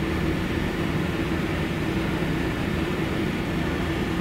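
Steady hum and noise of a brewery bottling line running, its conveyors and filler machinery carrying bottles, with an even low drone and no distinct impacts.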